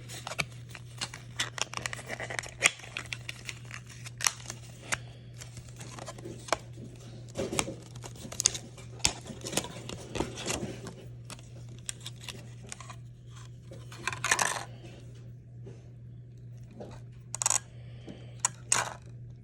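Scattered sharp clicks and clacks of an Engineer DR-54 ratcheting stubby driver and its parts being handled and pulled apart, with a few short bursts of rustling.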